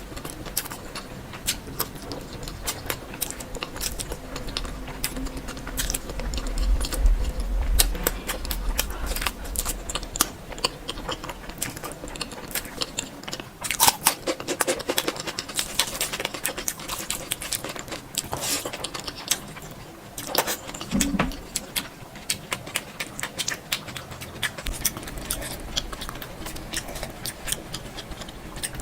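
Close-miked eating sounds: chewing and mouth sounds, many short sharp clicks in quick succession.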